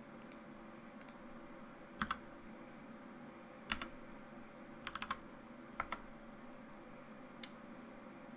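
Scattered clicks of a computer keyboard and mouse during CAD work: single presses and a few quick runs of two or three clicks, with gaps of a second or more between them, over a faint steady hum.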